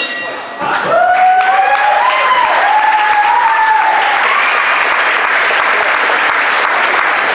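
Crowd applauding and cheering at the end of a round of a Muay Thai bout. A spectator's long whooping shout, wavering in pitch, rises over the clapping for the first few seconds.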